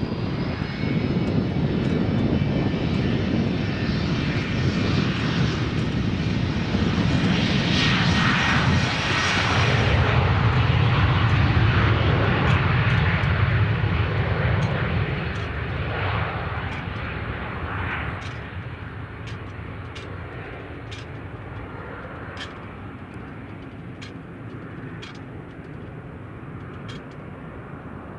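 Hawker 800XP business jet on its takeoff run, its two Honeywell TFE731 turbofans at takeoff power. The engine noise is loudest through the roll and liftoff, then fades steadily as the jet climbs away.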